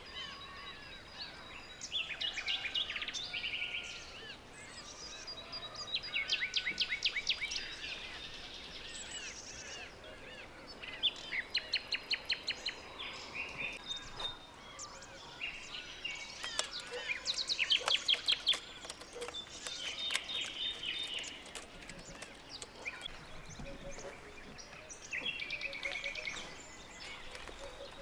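Songbirds singing outdoors, several at once: chirps and fast repeated trills, loudest in a few bursts, over a faint steady background.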